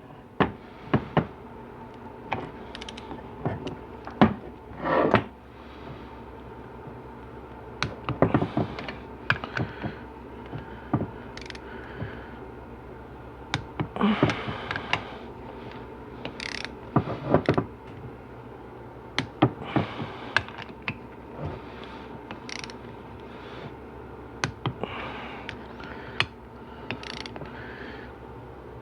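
A ratchet wrench tightening the bolts of a 4L80E transmission pump to 18 foot-pounds, clicking in repeated short bursts with knocks of metal tools in between.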